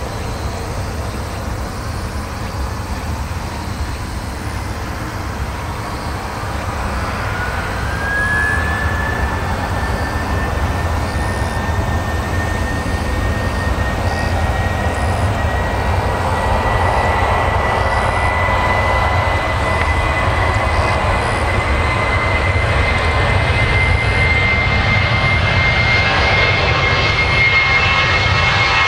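Airbus A320-200's twin jet engines spooling up to takeoff thrust. A rising whine comes in about a quarter of the way through and then holds as a steady high whine over a low rumble. The whole sound grows louder as the airliner comes down the runway on its takeoff roll.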